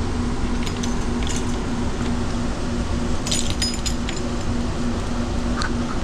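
Light metallic clinks of expansion-valve parts knocking together in the hands: a few single clinks, then a quick cluster about three seconds in. Under them runs a steady machinery hum with a constant low tone.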